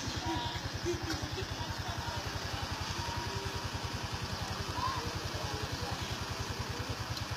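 A small engine idling steadily, a rapid, even low throb with no change in speed. Faint short chirps sound above it now and then.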